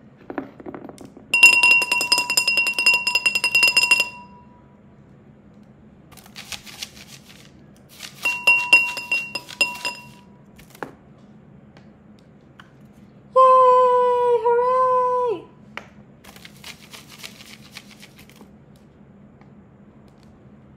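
Improvised household-object instruments played in turn. First comes rapid tapping or shaking with a ringing, clinking tone, then a soft rustle, and a second shorter round of clinking. A held pitched tone follows, wavering and then dropping away, and after it another short rustle.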